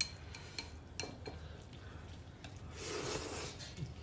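Utensils clicking against a bowl a few times, then mixing hand-rolled noodles with sauce and cabbage topping: a rubbing, stirring noise about three seconds in.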